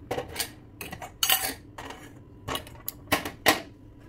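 Stainless steel cookware and spoons clinking and clattering as pans and a lid are handled on the stovetop: a string of about eight sharp metallic clinks, loudest around the middle and near the end.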